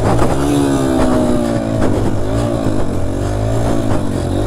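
Dirt bike engine running under load while being ridden, its pitch dropping and climbing several times as the throttle is rolled off and on. A few short knocks sound over it.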